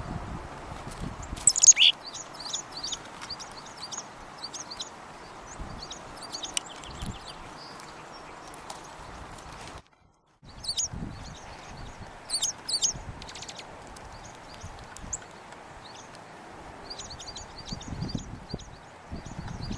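Small winter songbirds calling: many short, high chips and twitters, with one louder sweeping call about two seconds in. Occasional low thumps sit underneath, and the sound drops out for half a second midway.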